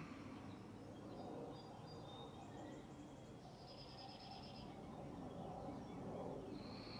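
Quiet outdoor background with faint bird chirps: a short high trill about halfway through and another chirp near the end.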